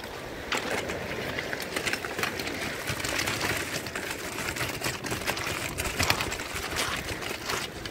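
Ozark Trail folding wagon pulled across a pebble beach, its wheels crunching and rattling over the stones in a rapid, irregular run of clicks, with footsteps crunching on the shingle.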